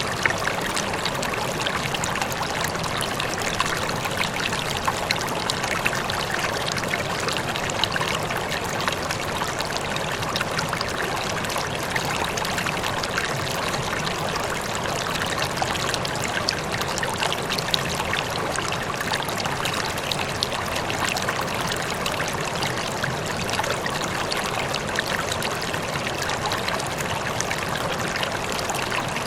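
Running water in a stream or small cascade, flowing and splashing steadily without a break.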